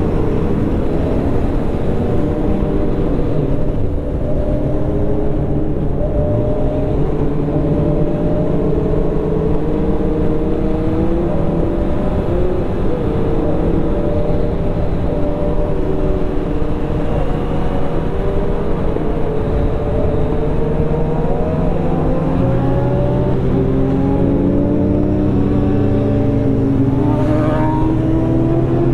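Suzuki Hayabusa's inline-four engine running at road speed, its pitch rising and falling with the throttle, over steady wind rush on the microphone.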